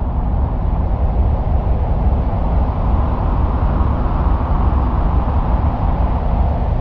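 A steady, low rumbling noise with no pitch or rhythm, played as the sound of the planet Mars.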